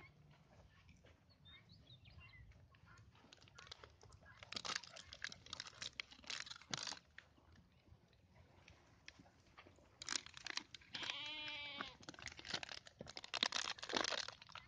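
Puppies scuffling and rustling in bursts, with one puppy giving a single wavering whine lasting about a second, about two-thirds of the way through.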